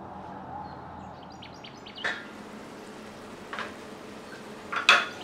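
Small birds chirping in a quick run of short high notes over a steady background hum, then sharp knocks of steel kitchenware: one about two seconds in and the loudest near the end.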